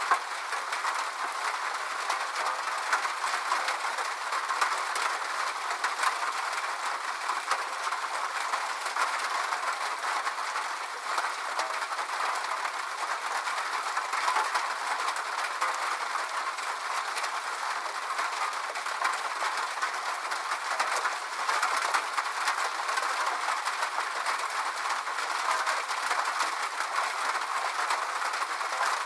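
Steady rain on a metal roof: a dense, even patter of countless small drops striking the sheet metal.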